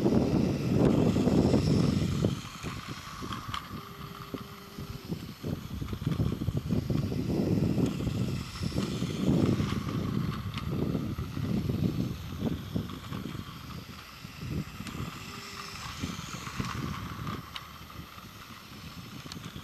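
Plarail Rapit toy train's small battery motor and wheels running on plastic track. It is loud as it passes close for the first two seconds, then fainter as it goes round the loop. Wind rumbles on the microphone throughout.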